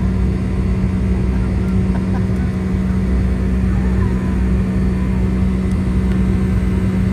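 Steady engine drone heard from inside a moving vehicle, with a constant low hum.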